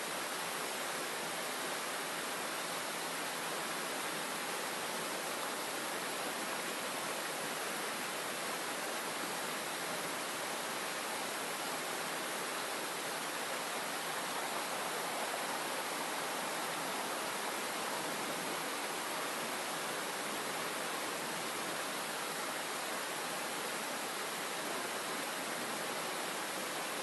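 Fountain water rushing steadily into a swirling vortex, a constant even wash of water noise.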